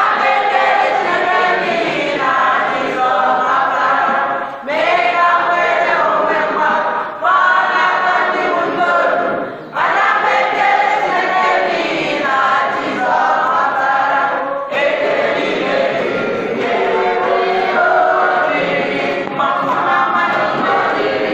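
A large group of young voices singing together as a choir, in phrases broken by short pauses every few seconds.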